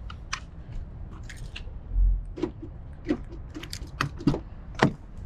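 A run of sharp clicks and knocks, with a dull low thump about two seconds in.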